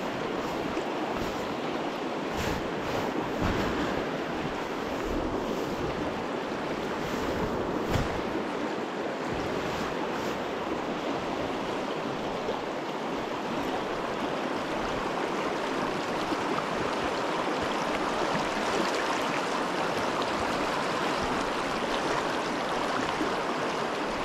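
Fast, shallow river water rushing steadily over rocks and stones, with one brief knock about eight seconds in.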